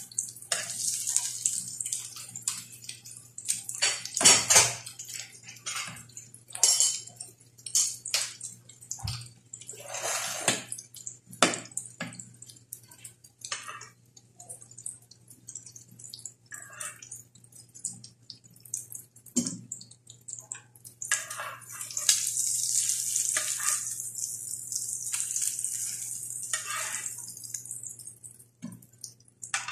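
Cabbage-and-egg fritters sizzling in oil in a nonstick grill pan, with a metal spatula scraping and knocking against the pan as they are turned and lifted out. The sizzle swells louder for several seconds about two-thirds of the way through.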